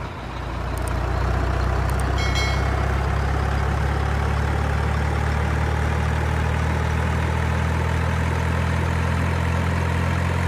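Heavy diesel engine of a multi-axle mobile crane truck running steadily as it drives slowly, a deep, even drone that swells over the first second and then holds. A brief high chirp comes about two seconds in.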